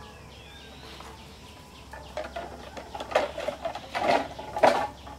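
Cut green bamboo poles clattering and knocking against each other as they are dropped onto the ground: a run of sharp knocks over the last three seconds, the loudest near the end. Birds chirp faintly before the knocks.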